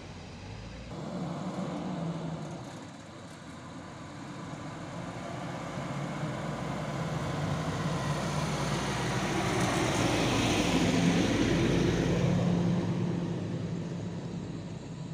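A pickup truck's engine and tyre noise swell as it drives past close by, loudest about two-thirds of the way through, then fade. A smaller swell comes near the start as another vehicle passes.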